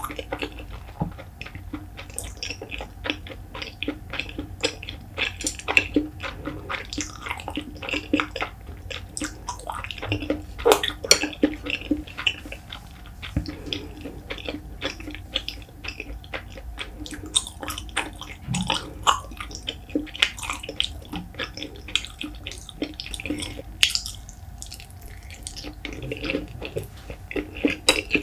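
Close-miked wet chewing with many small mouth clicks and smacks, a person eating a mouthful of rice with salted pollock roe.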